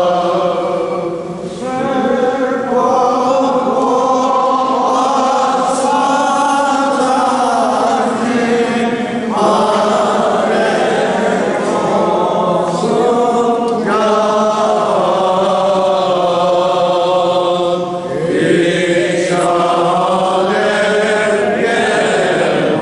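Armenian Apostolic liturgical chant sung by the church choir: a hymn in long held, gliding phrases, with short breaths between phrases every few seconds.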